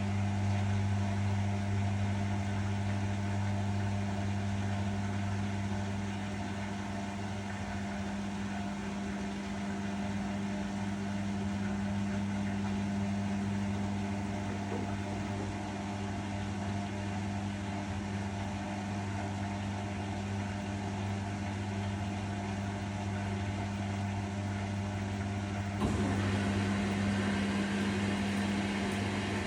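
Arçelik washing machine running its spin cycle: a steady mechanical hum with a strong low tone, and a sudden rise in the higher whirring near the end.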